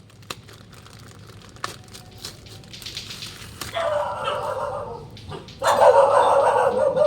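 Dogs barking, loud and in long runs in the second half, after a few faint clicks early on.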